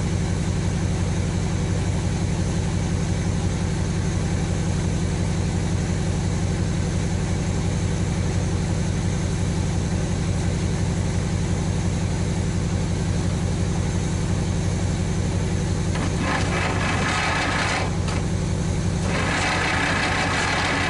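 An engine idling steadily, running to charge the tractor's battery. A louder, hissy noise joins it over the last five seconds.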